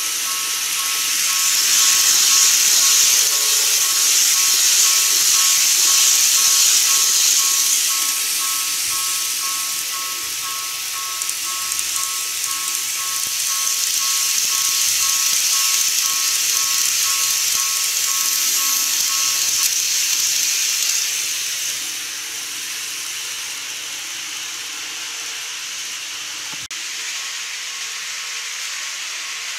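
Model railway level-crossing sounder ringing a rapid two-tone electronic ding until about twenty seconds in, while N-scale model trains run past on the track with a steady hissing rush of wheels and motors that swells twice.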